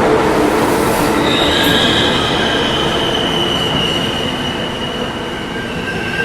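Train in a station slowing down: a steady rumble that gradually fades, with a high squeal coming in about a second in and slowly falling in pitch.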